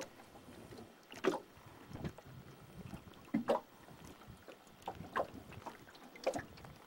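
Choppy lake water lapping and slapping against a small boat's hull in about six short, irregular splashes, over light wind on the microphone.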